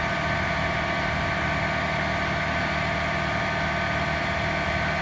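Tractor engine running steadily while driving a Massey Ferguson RB3130F Protec baler-wrapper, an even machine drone with steady whining tones and no change in speed.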